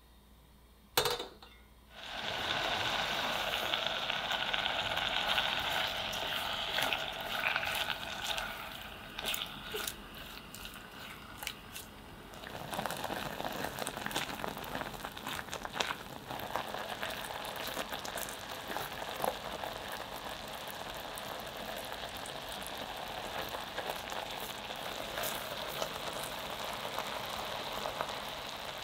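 A saucepan is set down on a gas stove's metal grate with a sharp clank about a second in. Then orange segments with sugar bubble and sizzle steadily as they cook down into a compote, with light knocks of a spatula stirring the pot.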